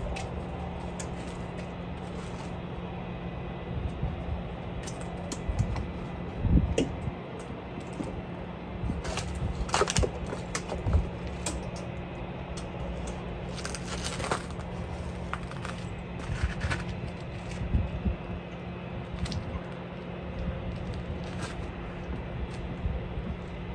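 Scattered metallic clinks and rattles of chain hooks and strap hardware being handled and fastened at the back of a box truck for towing, a few louder clanks among them, over a steady low engine hum.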